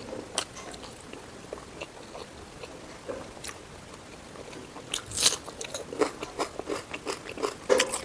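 Close-up eating sounds of a person chewing pork curry: soft mouth clicks and bites, sparse at first, then a busier run of louder crunches from about halfway through.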